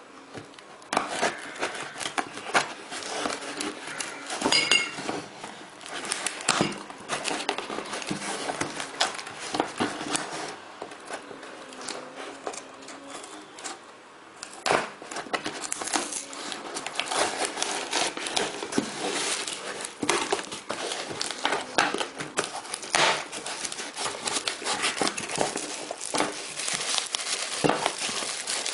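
Shipping packaging being opened and handled by hand: plastic and paper crinkling and rustling, with irregular clicks and taps and a short squeak about four and a half seconds in.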